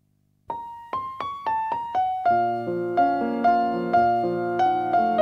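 Piano background music: about half a second of silence, then a short run of single struck notes rising in pitch, followed from about two seconds in by fuller chords.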